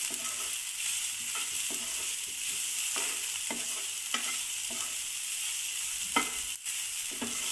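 An onion, tomato and coconut masala frying with a steady sizzle in a nonstick pan, while a spatula stirs and scrapes it in short, irregular strokes. The masala is being sautéed until it cooks down dry.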